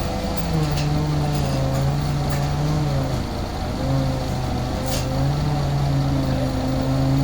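An engine running steadily, its pitch drifting slightly up and down, with a few short sharp clicks, the clearest about five seconds in.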